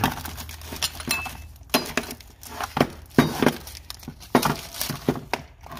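Irregular clinks and clicks of new brake pads and their metal pins and clips being handled on a metal workbench, with plastic packaging rustling.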